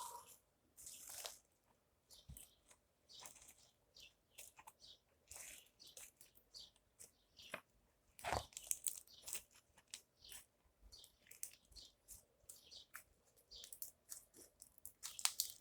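Slime mixed with foam beads being squeezed and worked by hand, giving faint, irregular crunchy crackles and pops, with one sharper pop about halfway through.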